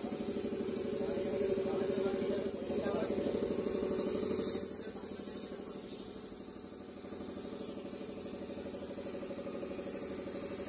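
Air compressor running with a steady, pulsing mechanical drone while a spray gun sprays black paint onto a motorcycle front mudguard; the drone eases off about halfway through.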